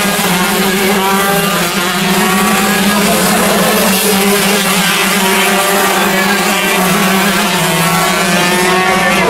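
Several two-stroke shifter kart engines racing past, their buzzing pitch rising and falling as they accelerate through the gears and lift for corners, over a steady low hum.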